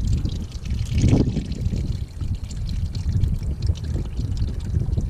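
Used oil draining and trickling out of a Kubota BX1860 tractor into a drain pan, with wind buffeting the microphone as a low rumble.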